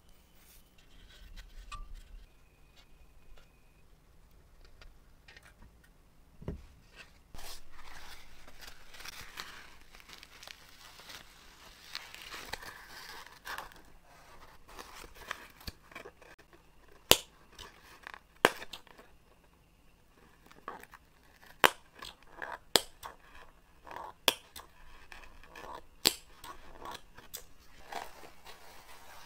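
Old, stiff leather from a firefighter helmet being flexed and pulled apart by hand: rustling and crackling, then a run of sharp clicks and snaps from about halfway through.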